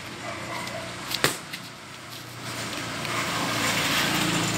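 A boxing glove punch lands with a single sharp smack about a second in. A vehicle running nearby grows louder through the second half.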